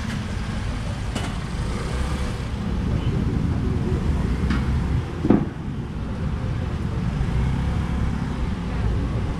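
Steady street traffic rumble, with a few short knocks, the loudest about five seconds in.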